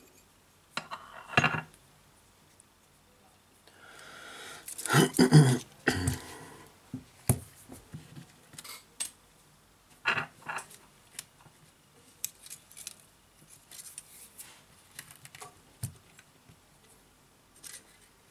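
Hands handling smartphone parts and small repair tools on a workbench: scattered clicks, taps and light clinks, with a louder rustle and clatter about five seconds in.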